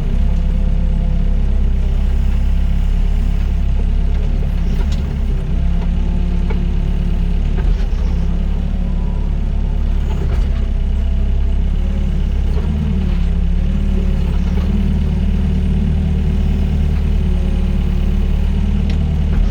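Doosan DX55 mini excavator's diesel engine running steadily under load, with tones that rise and fall as the hydraulics work the arm and bucket, and a few faint knocks.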